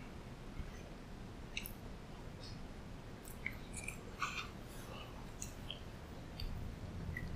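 Close-up chewing of a mouthful of oyaki, a soft pancake filled with sweet red bean paste, with scattered small wet mouth clicks and smacks over a low steady room hum.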